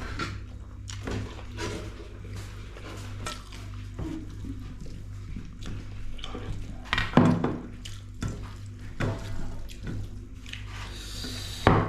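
Mukbang eating sounds: short clicks and clinks of a plate and hand-mixing of rice with broth, scattered through, the loudest about seven seconds in, over a steady low hum.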